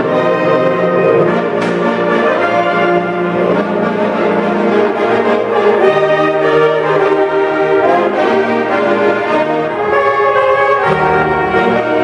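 A large saxophone ensemble of alto, tenor and baritone saxophones playing Christmas music in held, many-voiced chords.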